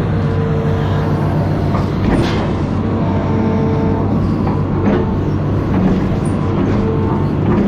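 Amphibious excavator's diesel engine running steadily, with a few sharp metallic knocks and a mid-pitched tone that comes and goes.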